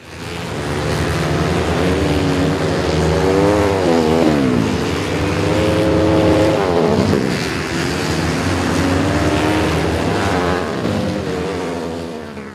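Dirt bike engines revving hard, pitch climbing and then dropping sharply about four and a half and seven seconds in as the throttle is shut or the gear changes, over a steady lower engine drone.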